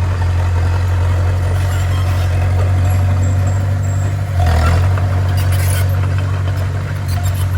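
Bulldozer's diesel engine running steadily with a deep hum, a brief louder burst about four and a half seconds in.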